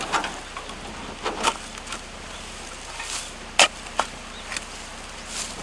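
A shovel digging into dry soil: a string of scrapes and knocks at irregular intervals as the blade is driven in and soil is lifted, the loudest a sharp strike about two-thirds of the way through.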